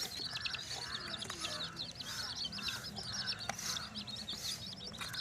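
Baby chicks peeping continuously: many short, high chirps overlapping without a break.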